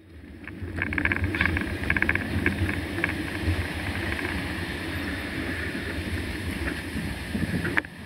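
Mountain bike riding over a rough, potholed road: steady wind rumble on the bike-mounted camera's microphone, with tyre noise and the bike rattling, including a run of quick rattling clicks in the first few seconds.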